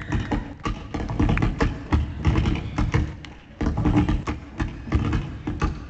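Tap shoes striking a stage floor in quick, irregular runs of taps, with a short lull about three and a half seconds in.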